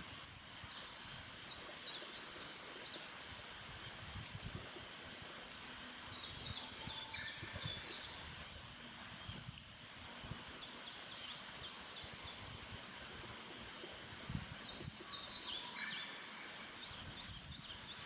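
Wild birds calling in several bursts of quick, high chirps over a steady outdoor background hiss.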